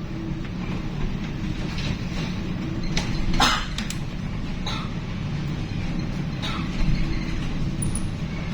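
Steady low drone of a ship's engine running at sea. Loud knocks come about three and a half seconds in and again about seven seconds in.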